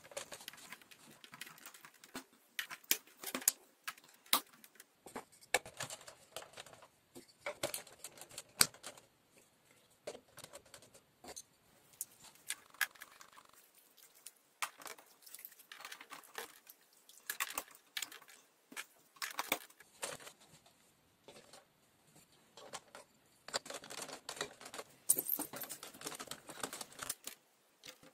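Exin Castillos plastic building bricks being handled and pressed into place: irregular clicks and small clatters of plastic on plastic, coming in clusters with brief pauses.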